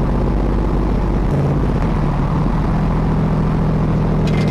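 Small-block Ford V8 of a Factory Five Shelby Cobra replica running on the road. Its steady note breaks up and shifts in pitch about a second in, then settles steady again.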